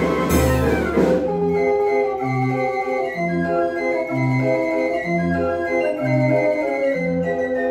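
Dutch street organ (draaiorgel) playing a tune on its pipes. A full, loud passage with drum strokes ends about a second in, giving way to a lighter passage of held melody notes over a bass that alternates between two notes about once a second.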